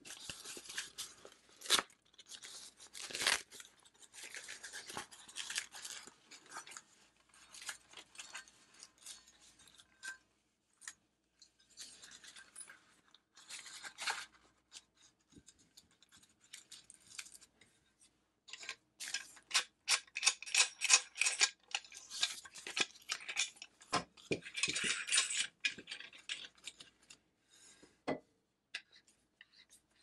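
Handling noise as a Zune Lotoo ZS-2 folding camping shovel is packed away: a fabric cover rustling and rubbing as the shovel head goes into it, with scattered clicks and knocks of the metal handle sections. The rustling and clicking are busiest in a stretch past the middle.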